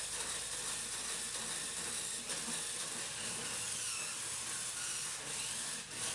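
Small electric drive motors of a toy two-wheel 360° stunt RC car whirring as it drives and spins, its big rubber wheels rolling on a hardwood floor. The sound is faint, with a thin whine that wavers in pitch over a steady hiss.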